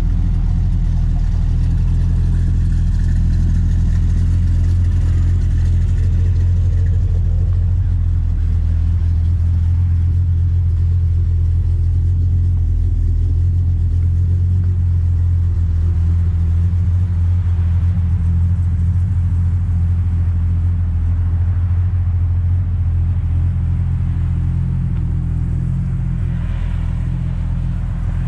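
Dodge Charger 'General Lee' engine idling steadily, a little quieter near the end.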